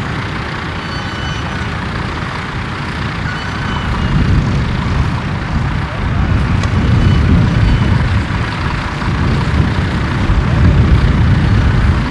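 Tractor engine running steadily under load, growing louder about four seconds in.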